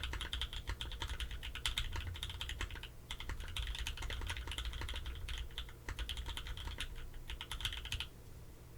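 Typing on a Hive60 mechanical keyboard with Pewter switches lubed with 205g0 and 105 oil and fitted with TX films, on a carbon fibre plate with plate foam and GMK keycaps: a fast, steady stream of keystrokes with a brief pause about 3 s in, stopping shortly before the end.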